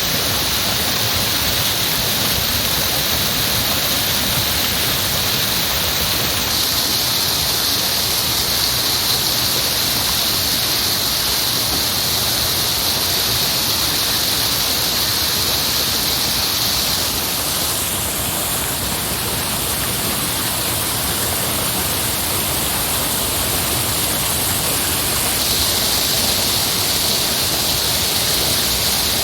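Heavy rushing water, a steady, continuous noise whose upper hiss shifts slightly a few times.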